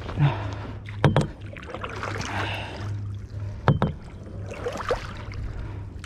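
Water lapping and sloshing against a plastic fishing kayak's hull as it rocks on the sea, with several sharp knocks, a pair just after one second and another pair near four seconds in, over a steady low hum.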